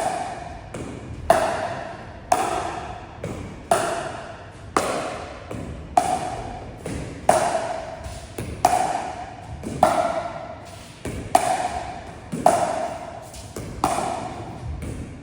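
Pickleball paddles hitting a plastic ball back and forth in a steady rally. A sharp, ringing pock comes about once a second, with fainter taps in between.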